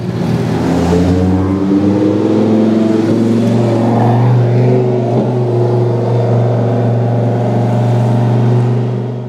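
Supercar engine running hard, its revs climbing a little in the first two seconds and then holding fairly steady; the sound fades out at the very end.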